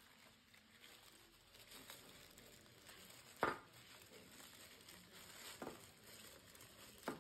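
Faint rustling and crinkling of tissue paper as it is unwrapped from champagne flutes by hand. A sharp tap sounds about three and a half seconds in, and another near the end.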